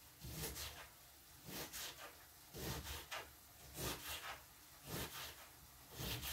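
Kitchen knife slicing through cabbage and knocking on a cutting board, six cuts at a slow, even pace of about one a second.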